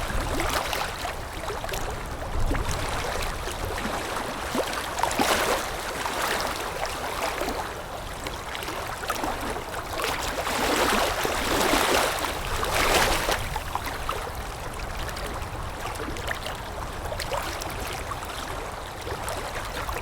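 Wind-driven water lapping against a shore: an irregular wash of small waves. A few laps swell louder about a quarter of the way in and again just past the middle.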